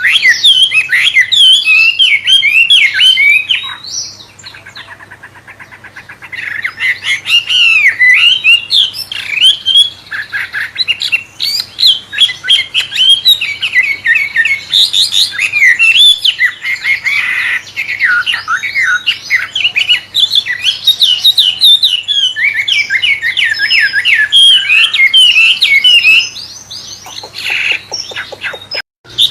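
A wambe songbird singing a fast, varied song of quick chirps, sweeps and trills in a magpie-robin-like style, with a short quieter lull of rapid faint ticking about four seconds in.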